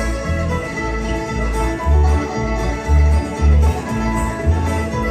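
Acoustic bluegrass band playing an instrumental break, with fiddle taking the lead over banjo, acoustic guitar and a bass pulsing about twice a second.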